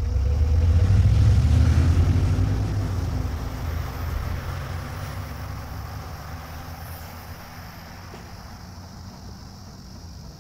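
A car driving, a low steady rumble of engine and road noise that is loudest in the first two or three seconds, then slowly fades.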